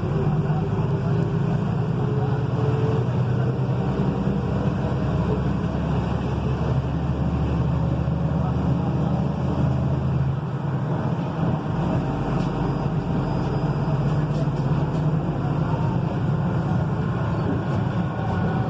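Volkswagen 17.210 truck's diesel engine running, a steady low drone; the lowest part of the drone changes about ten seconds in.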